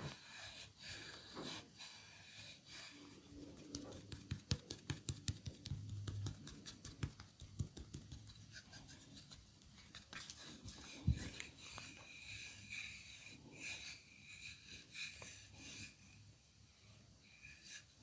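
Hands massaging a person: rubbing on skin, with a quick run of clicks about four to seven seconds in and one sharp crack about eleven seconds in.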